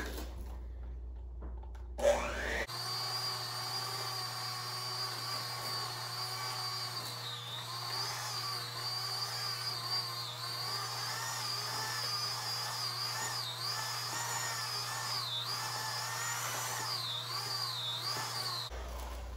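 Electric hand mixer running at low speed, beaters churning thick brownie batter in a plastic bowl. It switches on about three seconds in and stops just before the end, a steady whine that dips briefly now and then.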